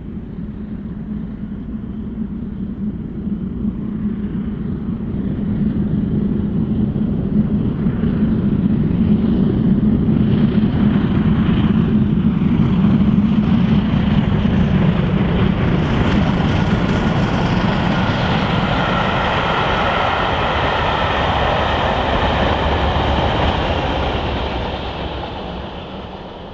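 Steam-hauled passenger train passing at speed: the locomotive's running and the rumble and clatter of the carriage wheels on the rails swell over the first few seconds, hold, then fade away near the end.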